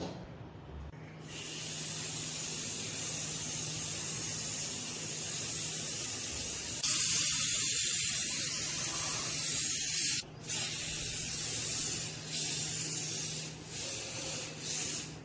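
A spray nozzle hissing. It sprays steadily from about a second in, louder from about seven to ten seconds, where it cuts off sharply, then gives several shorter bursts.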